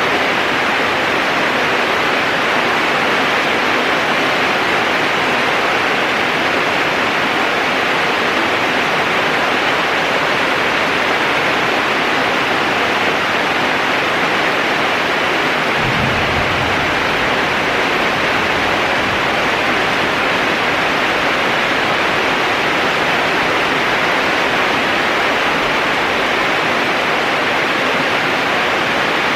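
Heavy rain pouring steadily during a thunderstorm. A low rumble starts suddenly about halfway through and lasts a few seconds.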